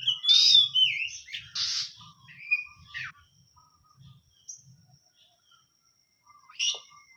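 Oriental magpie-robin (kacer) calling: a dense burst of loud, varied harsh notes and whistles in the first three seconds, then a few scattered short notes, and one more sharp call near the end.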